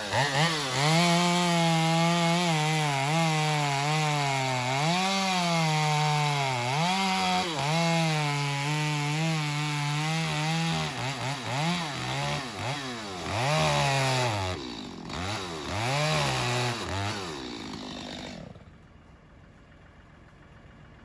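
Gas chainsaw cutting through a fallen tree trunk, its engine pitch rising and dipping as it works under load. From about halfway it revs up and down several times, then shuts off a few seconds before the end.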